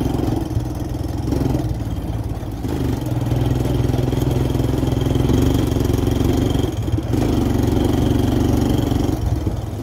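Quad bike engine running under way. The note eases off about a second in, picks up again at about three seconds, and dips briefly near seven seconds.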